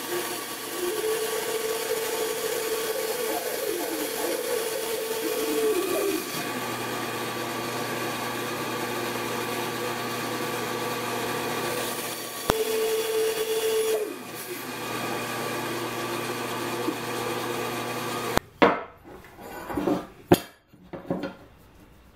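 JIB bandsaw running steadily, its blade cutting through 18 mm plywood twice: from about a second in to six seconds, and again briefly around twelve to fourteen seconds. Near the end the saw stops abruptly, and a few short scrapes and knocks follow as a pencil and square are worked on a wooden strip.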